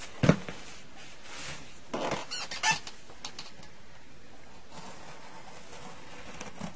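A cardboard box being handled and cut open with a knife: a thump just after the start, then scratchy scraping as the blade cuts, with a few light clicks and rustles.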